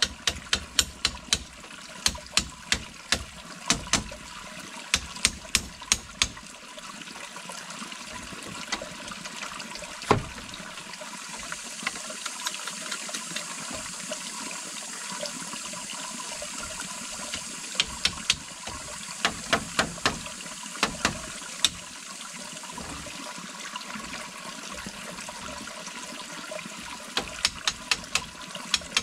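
Runs of sharp knocks, about three a second, come in three bouts, over a steady rush like flowing water.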